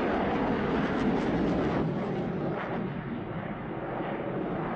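Fighter jet engine noise in flight: a steady rushing noise, a little quieter after about three seconds.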